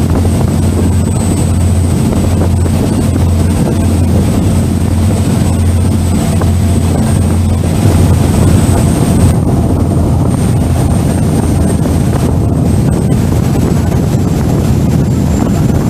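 Passenger ferry's engines running with a steady low drone, and wind buffeting the microphone.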